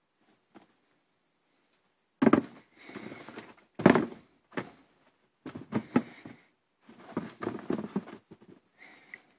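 Sneakers being handled and set down against a cardboard shoebox: two sharp knocks, about two and four seconds in, with rubbing and rustling between, and more shuffling handling noise through the second half.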